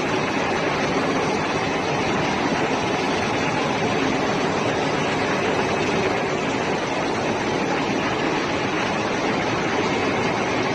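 Ship's engine room machinery running: a loud, steady, even noise with a faint hum held under it.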